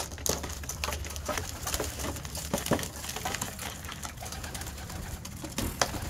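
Domestic pigeons cooing, with scattered short clicks.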